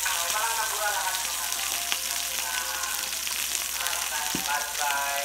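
Hida beef sizzling steadily as it grills for yakiniku, a continuous crackling hiss. Faint voice-like tones come and go behind it.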